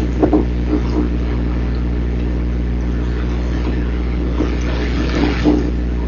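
Wind buffeting a nest camera's microphone over a steady low hum, with a few brief knocks or rustles near the start and again about five seconds in.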